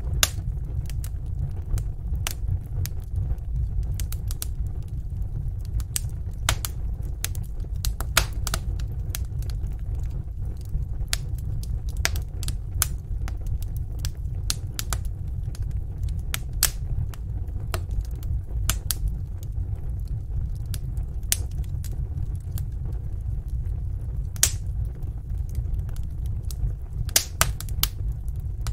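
Wood fire burning in a fireplace: a steady low rumble of flame with irregular sharp crackles and pops from the burning logs.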